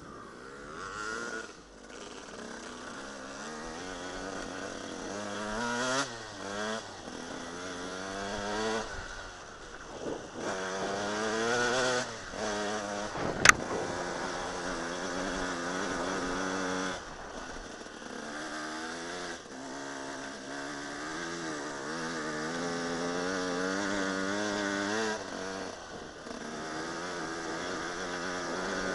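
Dirt bike engine revving up and easing off over and over under load as it climbs a rocky trail, with one sharp knock about halfway through.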